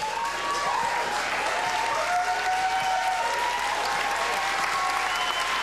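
Spectators in a gymnasium clapping and cheering, with voices calling out in drawn-out, wavering shouts over the clapping.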